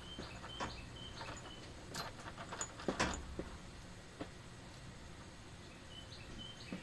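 A bird chirping in short, high notes near the start and again near the end, with scattered clicks and knocks, the loudest a cluster about three seconds in.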